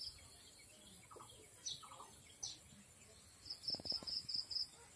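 Birds chirping in the background: scattered short high chirps, then a quick run of about seven evenly spaced high chirps near the end.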